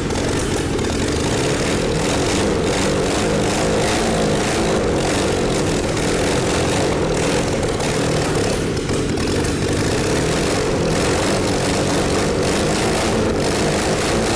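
Four-stroke carbureted engine on a test stand running steadily, its piston rings replaced with rubber ones.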